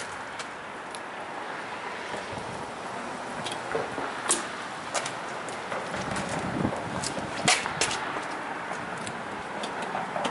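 Steady outdoor background noise with scattered light clicks and taps of hands handling parts and trim in a car's engine bay, clustered about four seconds in and again around seven to eight seconds in.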